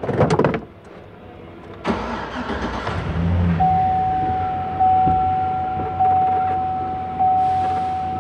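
After a brief clatter, a 2003–2006 GM full-size truck's engine is cranked and fires up, settling into a low idle. Soon after it starts, the dashboard warning chime begins dinging steadily, about once every second and a bit.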